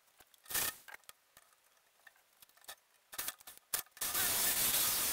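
A few clicks and knocks as a steel cabinet panel is handled on a workbench. About four seconds in, a power drill starts cutting a hole through the panel, a loud, dense cutting noise.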